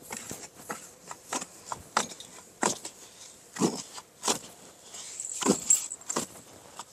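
A long-handled digging tool's blade scraping and chopping into dry, sandy earth, with loose soil crumbling and trickling between strokes. The scrapes come irregularly, about one every half second to a second.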